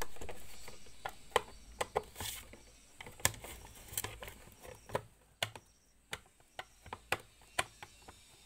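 Sharp, irregular clicks and knocks, about two a second, from hands handling and working on a plastic electric clothes iron. A hiss fades away over the first few seconds.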